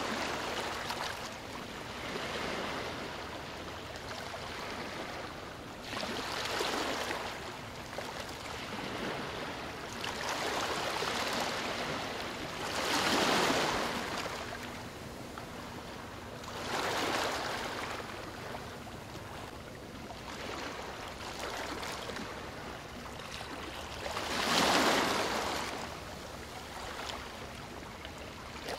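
Small sea waves washing against a rocky shore: a steady hiss that surges and ebbs every few seconds, strongest about halfway through and again near the end.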